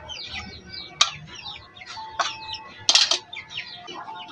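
Chickens chirping and clucking repeatedly, with a few sharp metal clanks from a wrench on a scooter's CVT clutch assembly; the loudest clank comes about three seconds in.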